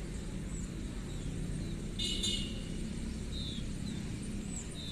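Steady low background rumble, with a few short falling bird chirps and a brief trill about two seconds in.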